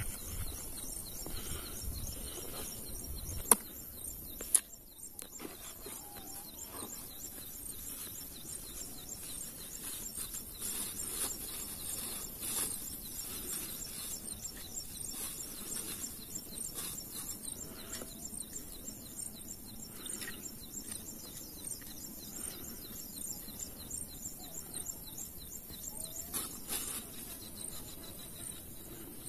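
Insects chirping with a steady high-pitched pulsing, with occasional bird calls. Two sharp clicks come about three and a half and four and a half seconds in.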